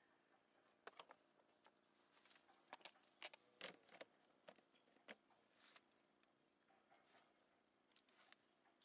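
Near silence, with a few faint small clicks of syringes and drug vials being handled over a faint steady high-pitched insect hum.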